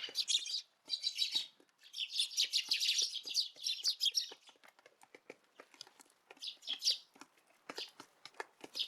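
A flock of Eurasian tree sparrows chirping, in dense bursts during the first half and sparser calls later. Many small sharp taps run through the chirping.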